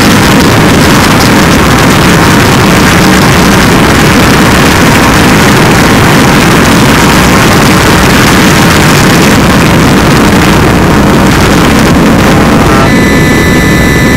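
Harsh noise wall: a loud, unbroken mass of distorted digital synth noise filling every register, with no rhythm or melody. About 13 s in, the top end changes into a comb of steady, evenly spaced whistling tones over the continuing noise.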